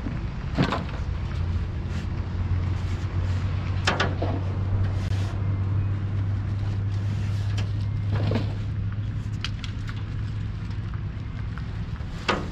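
Groceries being set into a pickup truck's bed from a shopping cart: four short knocks and clunks a few seconds apart as bags and items land, over a steady low mechanical hum.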